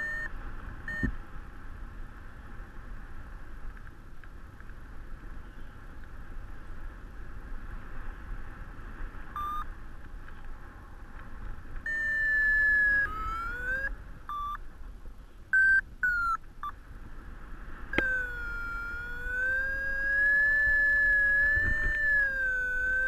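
A paragliding variometer sounding, its pitch following the rate of climb or sink: a few short beeps, then from about halfway through longer tones that glide down and up, and in the last five seconds a continuous tone wavering in pitch. Wind rushes over the microphone underneath.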